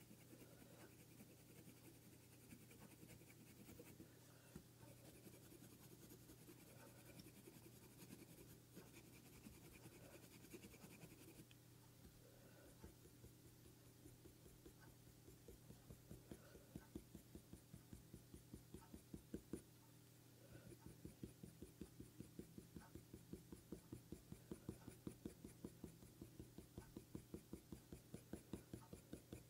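Faint scratching of a colour pencil on hot press paper in short, repeated strokes, becoming more distinct and regular about halfway through at roughly two to three strokes a second. A low steady hum sits underneath.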